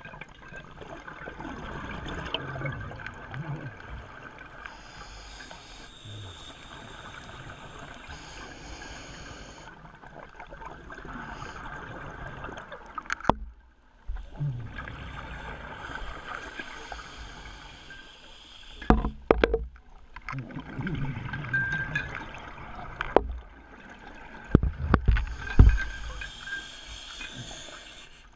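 Underwater sound picked up by a diver's camera: a steady watery hiss with several loud, low rumbling bursts, the biggest in the last third. The sound cuts out briefly twice.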